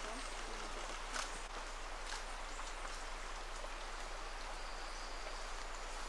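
Steady rushing hiss of water, typical of a cloud forest stream or rain, with a few sharp drip-like clicks in the first couple of seconds. A faint, thin high tone comes in about five seconds in.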